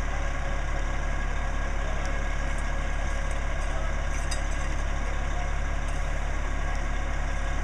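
Fire engine idling, a steady low hum.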